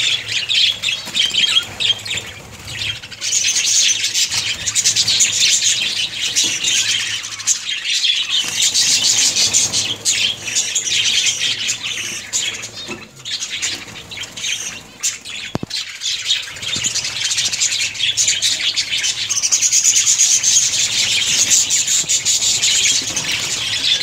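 A colony of budgerigars chattering and squawking continuously, many birds calling at once.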